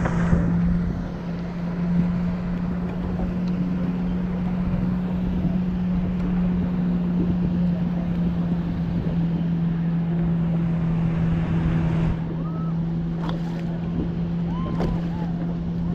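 A boat's motor running with a steady hum, wind rushing over the microphone; the rushing eases about twelve seconds in.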